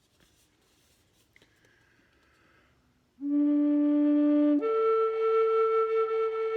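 Low D wooden drone flute, tuned to A440, played after a near-silent pause: a steady low note starts about three seconds in, then it steps up to a higher held note about a second and a half later.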